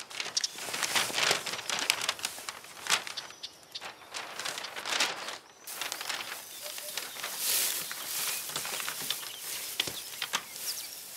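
Paper rustling and crinkling with scattered light taps and scrapes of wood as glass plates are wrapped in paper and packed into wooden crates.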